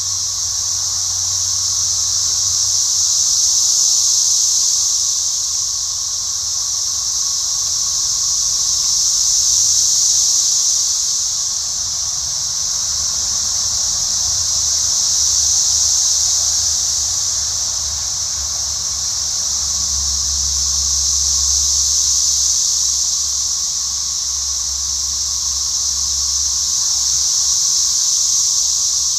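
An unexplained high-pitched hissing drone from the sky, which the recordist says is not cicadas. It swells and fades about every six seconds, with a fainter steady lower tone beneath it.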